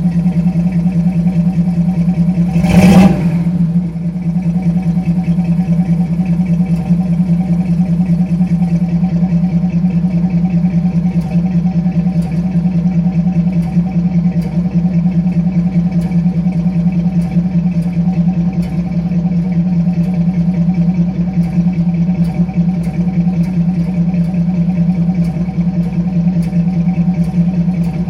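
1986 Chevy C10's 350 V8 idling steadily, which the owner suspects is misfiring. A brief loud burst comes about three seconds in.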